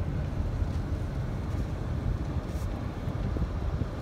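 Inside a moving car: steady low rumble of engine and tyre noise.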